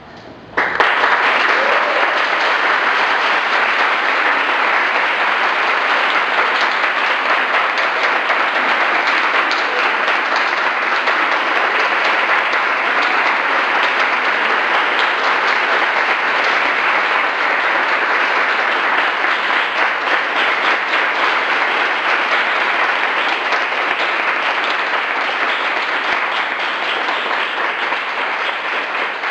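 Audience applauding: dense, steady clapping that starts suddenly about half a second in and eases slightly near the end.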